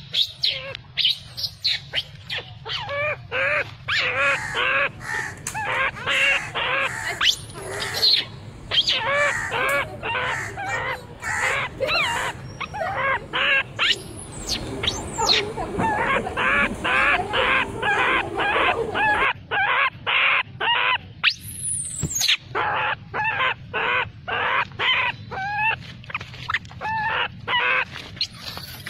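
A rapid series of short, high chirping animal calls, about three or four a second, going on with brief pauses, over a steady low hum.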